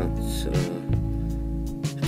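Background music with held tones over a bass line that changes note about a second in and again near the end.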